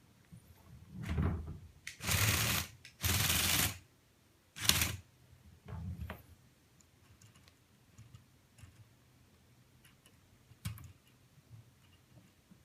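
Radio-controlled LEGO Technic bulldozer's motors and plastic gears and tracks running in five short bursts of clatter, each under a second, in the first half. Only a few light clicks follow.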